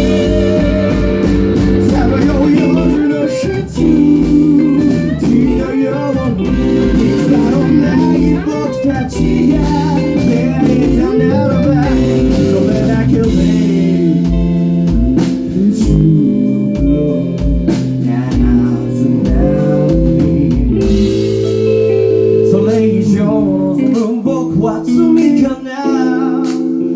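Band music with a guitar lead playing bending, held notes over a steady beat; the beat drops out about halfway through.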